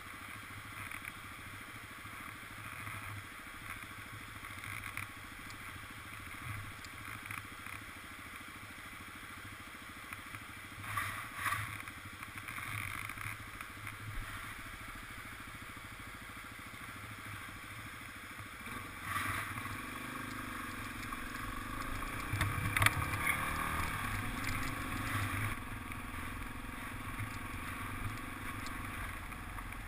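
Motorcycle engine running at low speed, over the steady rushing of a whitewater creek. About two-thirds of the way in the engine note rises as the bike speeds up. It is louder for a few seconds, then settles into a steady run.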